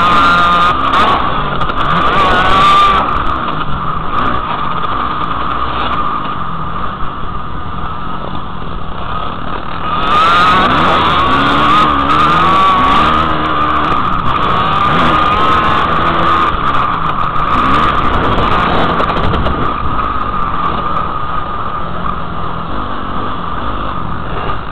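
Motocross dirt bike engine revving, its pitch rising and falling as the throttle is opened and closed, heard from a helmet-mounted camera.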